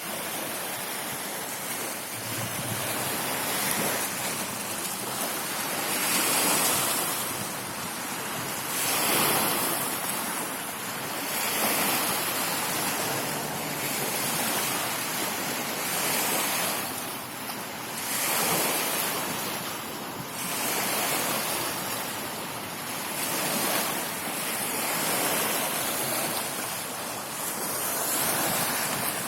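Ocean waves washing ashore, a steady rush of surf that swells and eases every two to three seconds.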